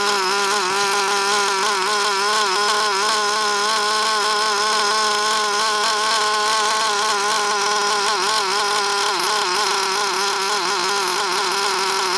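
Small two-stroke nitro RC car engine running steadily at full throttle on a very rich break-in mixture: a continuous whine whose pitch wavers slightly as the main needle is adjusted.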